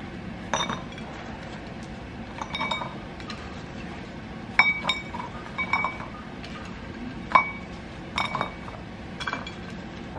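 Homemade cookies being set one by one into a ceramic bowl: a dozen or so light clinks at irregular intervals, several with a short ring from the bowl.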